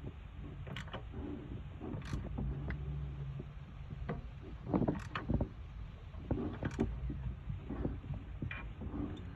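Handling noise from a car thermostat and its housing being fitted into place: scattered light clicks and knocks of parts and hands at work.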